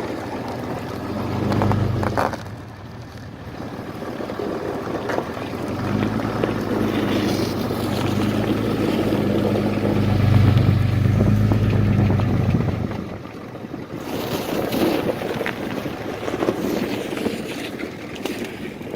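One-ton pickup truck driving across lake ice, heard from inside the cab: steady engine hum with tyre and road noise. The engine grows louder through the middle and eases off about two-thirds of the way in, leaving mostly a hiss of tyre noise.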